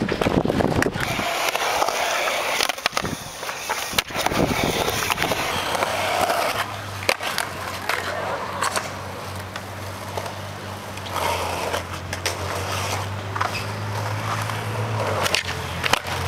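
Skateboard wheels rolling on concrete, with sharp clacks of the board striking the ground at intervals.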